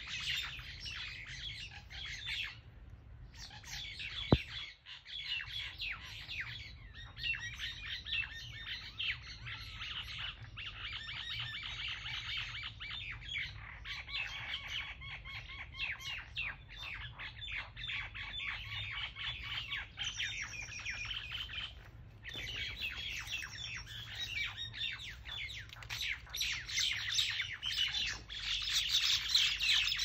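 Mynas fighting on the ground, giving a dense, rapid stream of chirps and harsh squawks that grows louder toward the end. A single sharp knock sounds about four seconds in.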